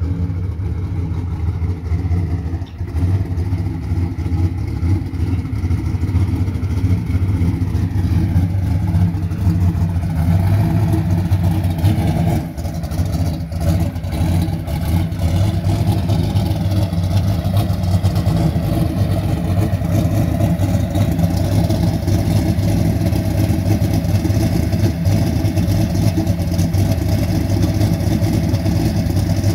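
Camaro drag racing car's engine idling steadily, a continuous low engine note with no pause.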